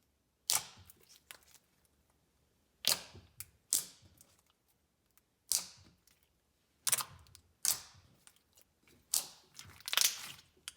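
Thick, glossy slime with small foam beads being pressed and played with by hand, giving about eight sharp pops and clicks of trapped air, each fading quickly, spaced a second or so apart.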